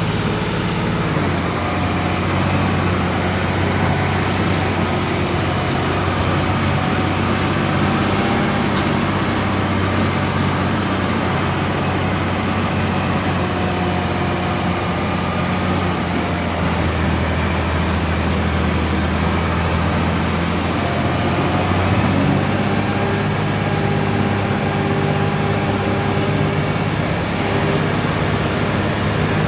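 Heavy earth-moving machine's diesel engine running steadily under work. Its note shifts a few times as the engine speed changes.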